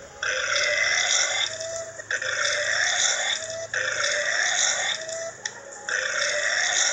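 A run of four long burps, one after another, each lasting about a second and a half with a slight rise in pitch.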